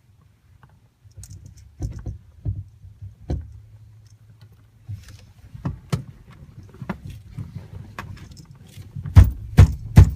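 Scattered clicks and knocks of a steering wheel being handled and worked onto the steering column, then a run of louder thumps near the end as it seats on the shaft.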